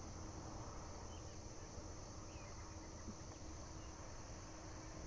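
Steady, high-pitched insect chorus, with a few faint short bird chirps over it.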